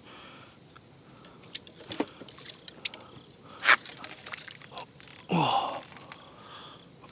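Handling noises while a hooked crucian carp is played and landed: scattered clicks and knocks, one sharp loud burst a little past the middle, and a short grunt falling in pitch about three-quarters through. Faint crickets chirp behind.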